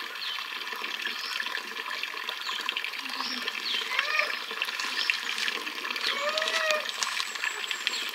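A steady rush of water-like outdoor noise with a few short, high bird chirps scattered through it.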